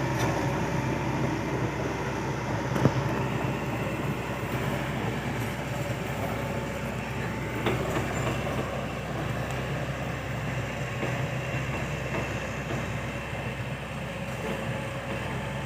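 Excavator's diesel engine running steadily under load, with a sharp metallic clank about three seconds in and another near eight seconds.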